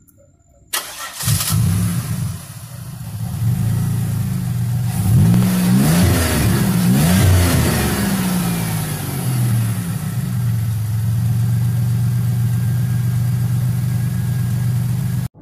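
Buick 3800 Series II V6 engine of a 2000 Buick LeSabre, revved up and down several times near the middle, then settling into a steady idle.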